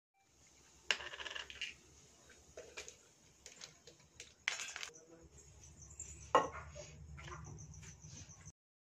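Added sound effect of sharp clicks and metallic clinks, the loudest about a second in and again past six seconds in, cutting off abruptly before the end.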